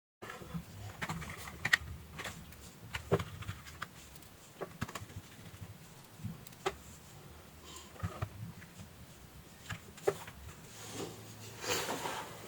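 Scattered light clicks and taps of an electronic device being handled on a workbench, over a faint low hum, with a short flurry of rustling near the end.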